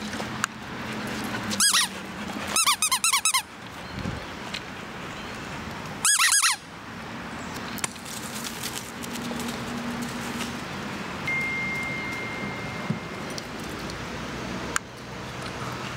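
Squeaky dog toy squeaking: one sharp squeak, then a quick run of about five, then another a few seconds later.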